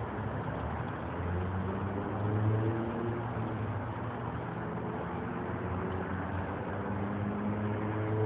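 Steady hum of passing road traffic. A vehicle's engine note swells about two seconds in and again near the end.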